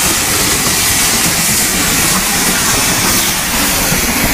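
Steam locomotive and its train moving slowly past, a loud steady hiss of steam with running train noise.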